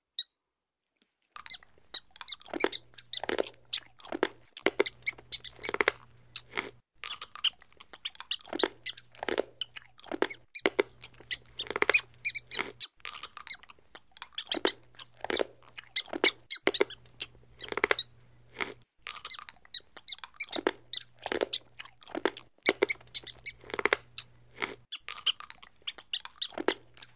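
Rats gnawing and squeaking: an irregular run of short, crisp crunching clicks, several a second.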